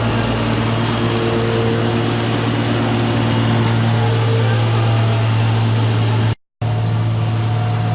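OLIVINOX 300 mini continuous olive oil extraction machine running, a steady, loud mechanical hum with a noisy whir over it. The sound cuts out completely for a moment about six and a half seconds in, then resumes unchanged.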